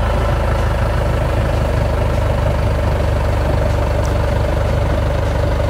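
Skid steer loader's engine idling steadily, a low, evenly pulsing rumble with a steady whine above it, while the raised bucket holds up a load on a chain.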